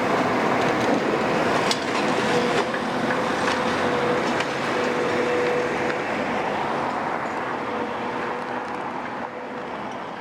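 Caterpillar M322C wheeled excavator's 3056E diesel engine and hydraulics running steadily with a held whine, a few knocks through it. The sound grows gradually quieter toward the end.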